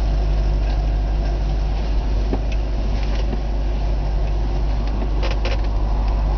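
1964 Ford Thunderbird's 390 V8 running at low speed as the car backs up, a steady deep rumble. Two short sharp clicks sound about five seconds in.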